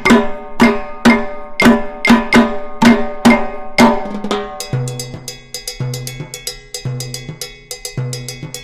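Music built on drums and percussion, keeping a steady beat of about two strikes a second; about halfway through it changes to a lighter pattern over a repeating low bass note.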